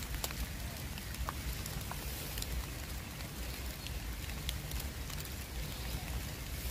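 Steady outdoor hiss with a low rumble and scattered small ticks and crackles, like light rain or dry grass being handled.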